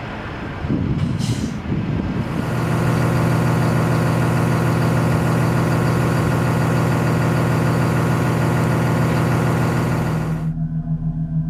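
SENNEBOGEN 830 material handler with a boom-mounted suction pump running under load: a loud, steady low hum with dense hiss over it, after a brief high hiss about a second in. It cuts off sharply near the end, leaving a low pulsing hum.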